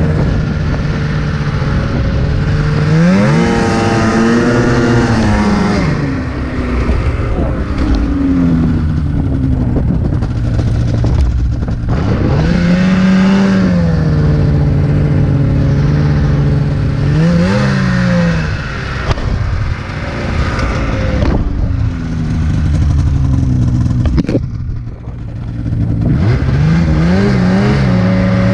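Snowmobile engine running at speed, its pitch sweeping up and back down several times as the throttle is opened and eased. A brief drop in level near the end as the throttle is let off.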